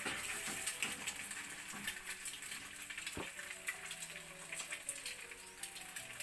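Hash browns and eggs frying in a pan on a gas stove: a steady crackling sizzle.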